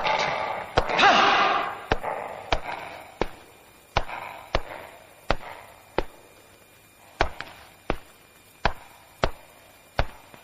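Heavy footsteps, a run of sharp, evenly spaced steps at a slow walking pace, about three every two seconds. A voice cries out in the first two seconds.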